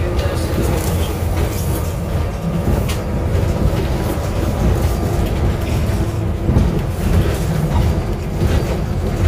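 Solaris Urbino 12 III city bus driving along, heard from inside at the front: steady engine and road noise.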